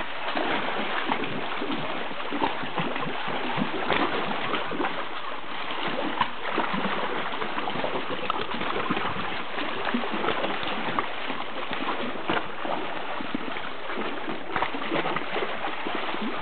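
Water lapping and splashing against a kayak hull and paddle, a steady wash of small splashes with frequent irregular little slaps.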